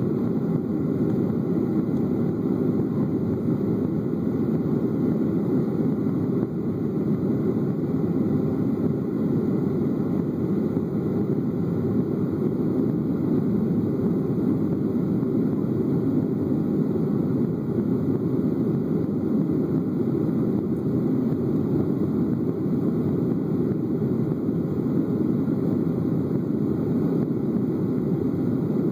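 Steady cabin drone of a jet airliner climbing after take-off, heard from inside at a window seat: engine and airflow noise as an even low rumble.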